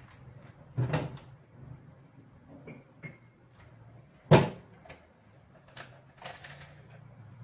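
A few knocks and thumps in a kitchen, a heavier one about a second in and the loudest, sharp one about four seconds in, with lighter knocks after, over a faint low steady hum.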